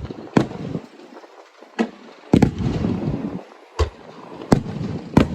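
Aerial fireworks shells bursting: about six sharp bangs at uneven intervals, each followed by a low rumbling echo.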